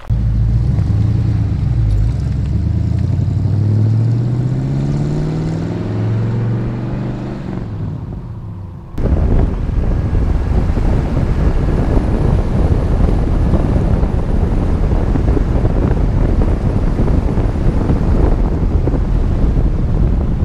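Ford 390 FE V8 of a 1966 F250 pickup pulling under acceleration, its pitch climbing. About nine seconds in it cuts suddenly to loud wind buffeting and road roar from the moving truck.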